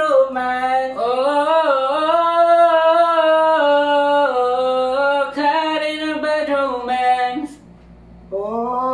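One voice singing unaccompanied in long, held notes that slide between pitches, breaking off for about a second near the end and then starting again.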